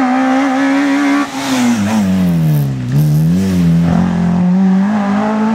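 Peugeot 205 Rallye's four-cylinder engine on a rally stage, held at high revs. About a second in the revs fall away for under two seconds, then climb again and hold, rising once more near the end.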